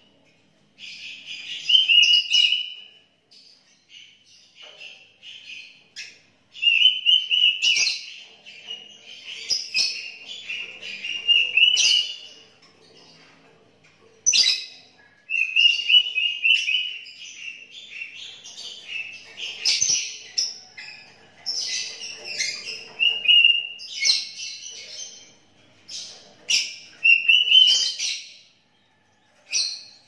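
Caged sooty-headed bulbul (kutilang) singing: short whistled phrases repeated every few seconds with brief pauses between them.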